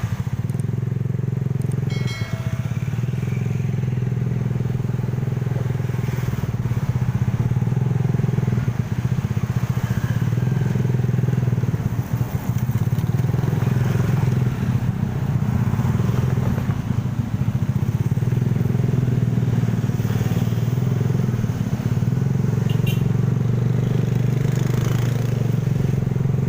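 Motorcycle engine running at a steady, even speed while riding, with road and wind noise.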